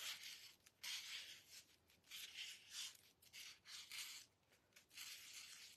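Faint scratching of a Posca paint marker's nib drawn across deli paper, in a series of short strokes with brief pauses between them.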